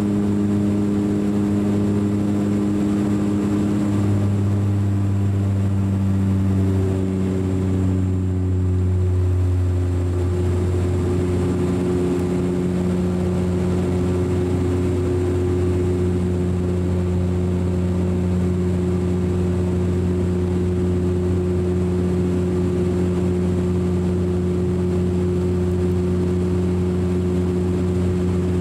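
Cabin drone of a DHC8-Q400's twin turboprop engines and propellers in climb, heard from inside the cabin: a steady low hum of several held tones. Between about four and ten seconds in the tones step down a little in pitch, then settle and hold steady.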